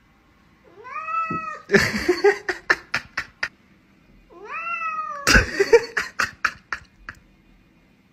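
Domestic cat meowing twice, about four seconds apart, each call short and rising in pitch before levelling off. Each meow is followed by a rapid run of sharp, noisy bursts lasting a second or two.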